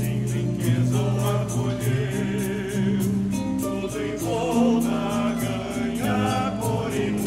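Choir singing with instrumental accompaniment and a steady light beat.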